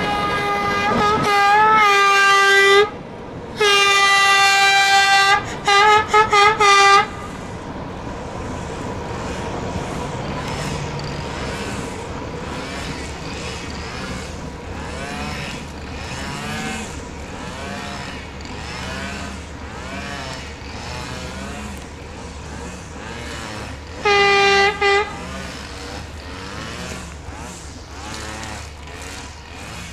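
Diesel shunting locomotive sounding its horn: two long blasts, then a quick series of short toots, and one more short blast much later. Between the blasts its diesel engine runs steadily.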